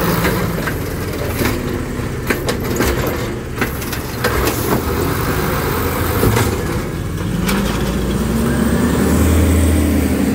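Peterbilt 320 side-loading garbage truck emptying a recycling cart with its automated arm: the recyclables clatter and knock into the hopper over the running engine. Near the end the natural-gas engine revs up as the truck pulls away, its pitch rising and then falling.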